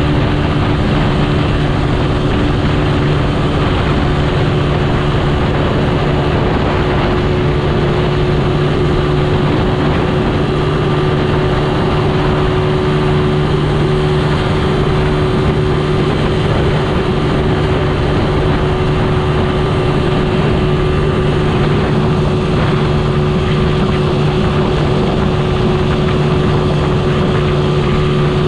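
Motorcycle engine running at a steady cruising speed, its hum holding the same pitch throughout, under a steady rush of wind and road noise.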